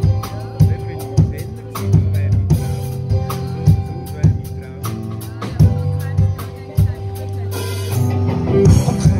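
Live band playing an instrumental intro: drum kit keeping a steady beat under bass guitar and electric guitar, before any singing comes in.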